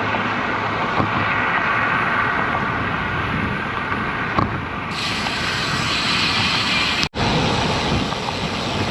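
Wind rushing over the action-camera microphone, mixed with road noise, while a road bicycle rides along a street into a headwind. The sound cuts out for an instant about seven seconds in.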